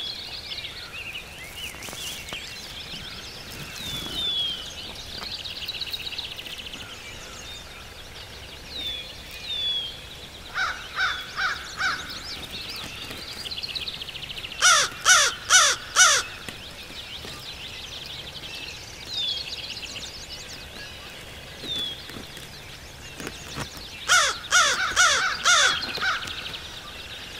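American crow cawing in three series: about four softer caws around 11 seconds in, four loud caws around 15 seconds, and a run of about six loud caws near the end. Small birds chirp and trill faintly in between.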